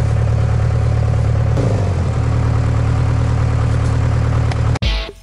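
Backhoe engine running steadily, heard from inside the cab; its note shifts about two seconds in. Near the end it gives way to guitar-and-drum music.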